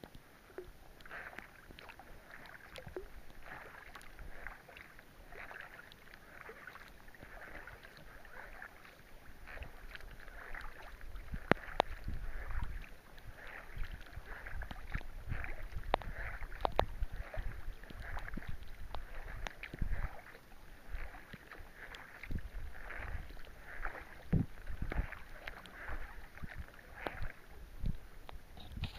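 Paddle strokes of a sea kayak splashing in a steady rhythm, about one a second. Scattered sharp ticks and a low rumble join in, the rumble louder from about halfway.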